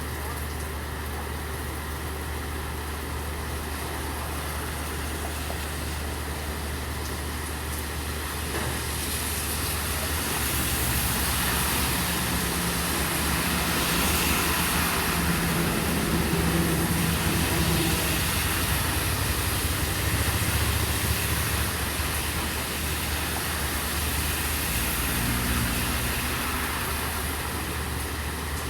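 Rain on a street with a steady low engine hum underneath. About a third of the way in, a vehicle's hiss through the wet road builds, is loudest around the middle, and fades away near the end.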